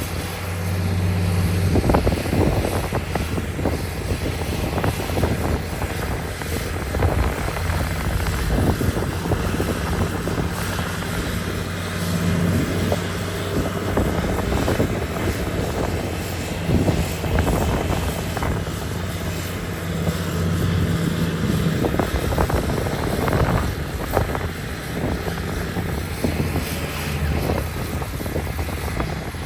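Heavy diesel earthmoving machinery running steadily with a low engine tone, overlaid by scattered clanks and knocks.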